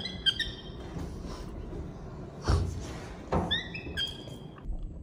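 Baby macaque giving short high-pitched squeaks in two runs, one at the start and another about three and a half seconds in. Two sharp knocks come in between, around two and a half and three seconds in.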